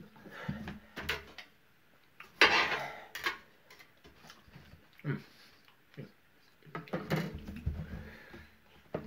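A man's low pained groans and sharp breaths as a superhot HP22B pepper burns his mouth, with one loud forceful exhale about two and a half seconds in. Light clicks of a small cutting tool being handled and set down on the table come between them, one near the end.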